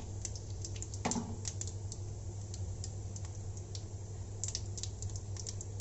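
Cumin seeds crackling and popping in hot oil in a steel frying pan: many small, irregular pops, over a steady low hum.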